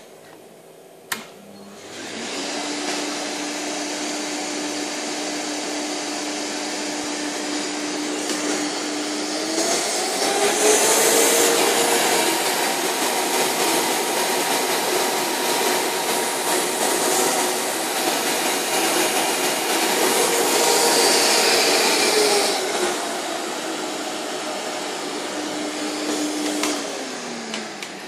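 Festool dust extractor switched on with a click, its motor spinning up and running steadily with a whine. About ten seconds in it speeds up, louder and higher in pitch, then drops back to the lower speed some seconds before the end. Near the end it is switched off and winds down with a falling whine.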